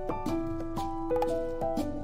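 Background music: a gentle instrumental with held keyboard-like chords that change every half second or so, over soft beats.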